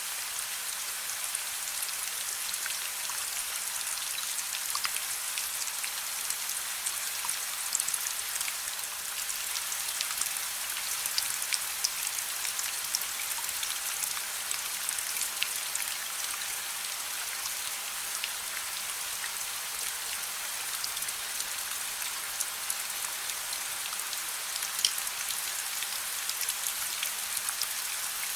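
Steady rain hissing, mixed with the soft crackle of a fireplace fire: scattered small ticks and pops throughout, with one sharper pop near the end.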